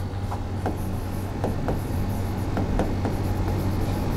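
A steady low hum and room noise, with short faint squeaks and taps of a pen writing on a board every half second or so.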